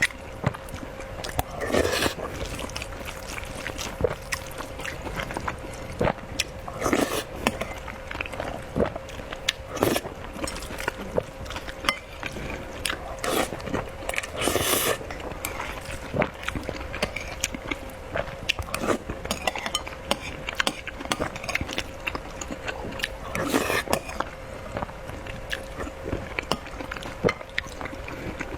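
Close-miked eating of a wet rice soup with tomato and fried egg: steady chewing and lip smacking with many small mouth clicks, and several louder noisy slurping bursts spread through. A faint steady hum sits beneath.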